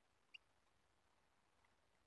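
European goldfinch giving one short high chirp about a third of a second in and a fainter one near the end, over near silence.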